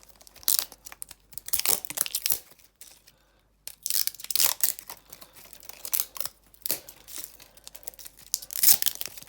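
Wrapping layer of an L.O.L. Surprise toy capsule being peeled, torn and crinkled by hand in irregular bursts, with a short pause about three seconds in; the layer is stuck and hard to get off.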